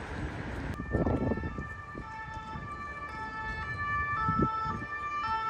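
Emergency-vehicle siren sounding from about a second in, its pitch stepping back and forth between notes, over low street rumble.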